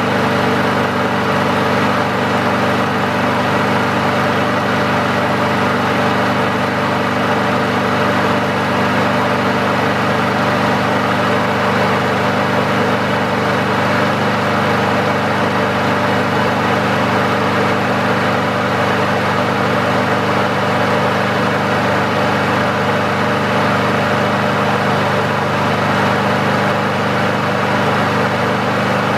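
Brand-new Honda walk-behind lawn mower's single-cylinder four-stroke engine running steadily just after a cold start, the auto choke doing its job: an even note with no surging or hunting.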